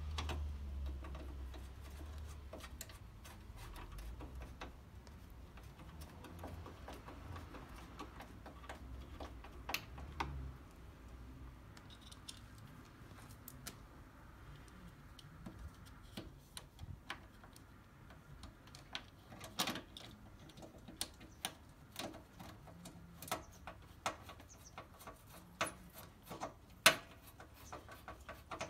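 Scattered metallic clicks and ticks of hand tools and bolts as the front bumper's mounting bolts are worked, coming more often in the second half. A low rumble at the start fades within the first few seconds.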